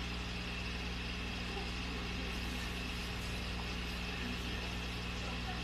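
A steady low mechanical hum over an even hiss, with no change in level.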